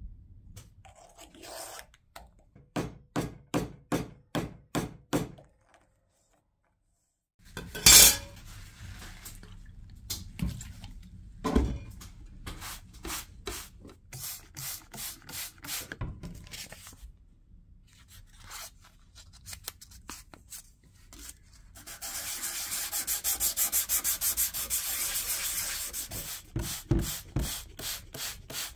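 Hand scrubbing of rust off a small steel plate: several runs of back-and-forth rubbing strokes with short pauses between them. A sharp knock about eight seconds in is the loudest sound, and a long, fast run of strokes comes near the end.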